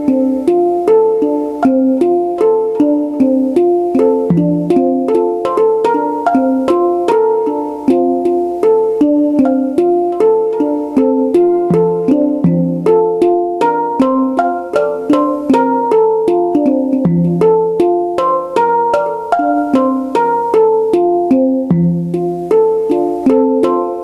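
Electronic hang drum sounds struck on drum pads with sticks: a quick, continuous stream of ringing pitched notes, several a second, forming a repeating melodic pattern.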